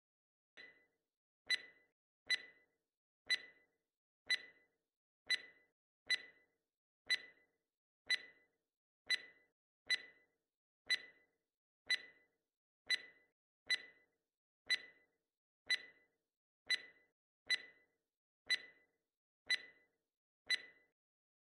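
Countdown timer sound effect: a clock ticking steadily about once a second, the first tick fainter, counting down the time allowed to answer a quiz question.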